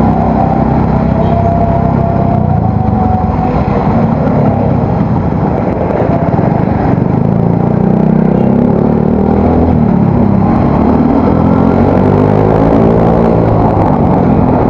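Yamaha Mio Soul GT scooter engine running under way through an aftermarket exhaust, its revs rising and falling as the throttle is worked.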